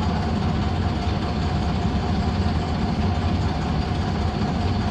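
YaMZ-236 V6 diesel of a LiAZ-5256.30 city bus running steadily, heard from inside the bus: an even low drone with a steady mid-pitched tone above it.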